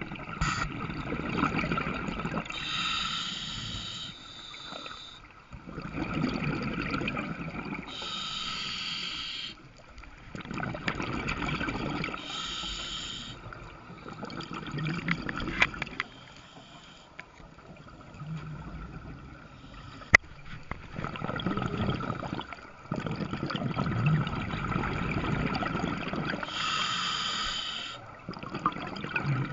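Scuba diver breathing through a regulator underwater: a short hissing inhale, then a longer rush of exhaled bubbles gurgling, in slow repeated cycles. A single sharp click about two-thirds of the way through.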